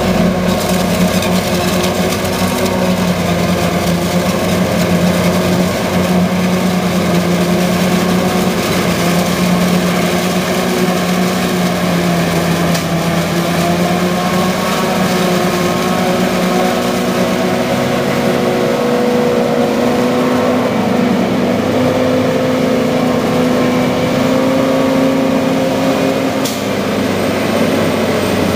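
John Deere self-propelled forage harvester chopping standing corn under load: a loud, steady engine drone whose pitch shifts slowly in the second half. There is a single sharp click near the end.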